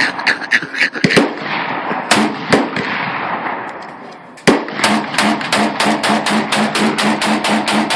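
Gunshots from a Mini Draco AK-pattern pistol in 7.62×39. Several separate shots come in the first half, then about 4.5 s in a rapid string of about five shots a second, fired as fast as the trigger can be pulled, runs to the end.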